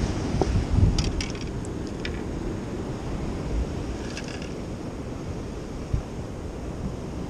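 Surf washing against a rock jetty, with wind buffeting the microphone; a few light clicks about a second in and again about four seconds in.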